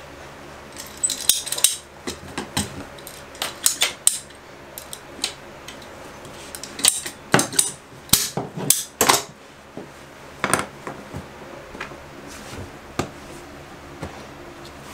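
Scattered sharp clicks and clatter of hand tools: a ratcheting PEX pipe cutter snapping through a PEX water supply line, and metal tools knocked against a vinyl tile floor. The clicks come in clusters, the busiest about a second in and again around the middle.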